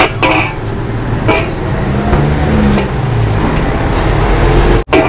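Metal spatula clanking against a large steel wok as noodles are stir-fried, a few sharp strikes over a steady low rumble, with a motor vehicle's engine running close by, loudest in the middle.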